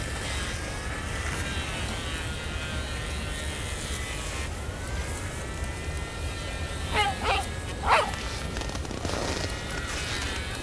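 A dog barks three times in quick succession, about seven to eight seconds in, over a steady drone whose pitch slowly wavers.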